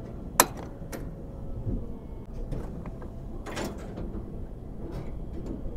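Automatic locking latch on a refrigerated truck body working: a sharp metallic click about half a second in, then a clatter of knocks about three and a half seconds in as the hook rises and pulls inward to lock the panel.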